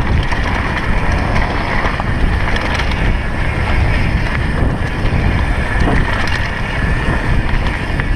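Mountain bike rolling fast down a dirt singletrack: steady wind rush on the microphone over the rumble of the tyres on the dirt, with a few short knocks from the bike over the ground.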